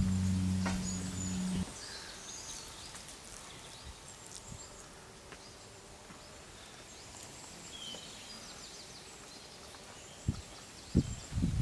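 A steady, sustained low musical drone cuts off suddenly about a second and a half in. After it comes quiet outdoor ambience with faint, scattered bird and insect chirps. A few short soft knocks come near the end.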